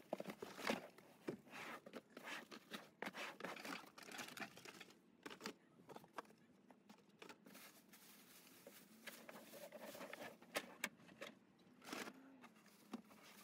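Faint, irregular crinkling of clear plastic wrapping and rustling and tapping of a cardboard box as a roof vent fan is unpacked by hand.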